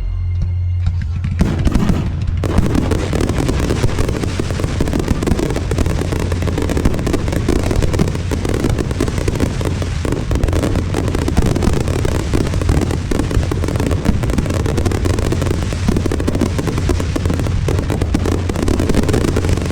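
Fireworks barrage: a few separate bangs at first, then from about two seconds in a dense, continuous run of overlapping bangs and crackles.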